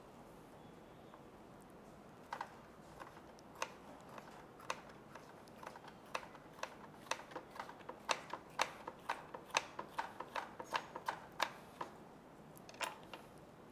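Knife slicing a green bell pepper into thin strips on a plastic cutting board: sharp taps of the blade striking the board, a few spaced out at first, then a quicker run of about two or three a second, ending with a last couple of taps near the end.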